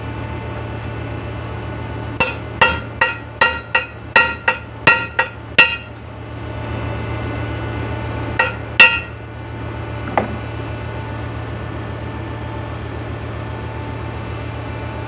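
Hammer blows on the steel of a ship's mooring winch during a brake-lining renewal. A run of about ten quick ringing strikes, about three a second, is followed a few seconds later by two more and then a lighter one.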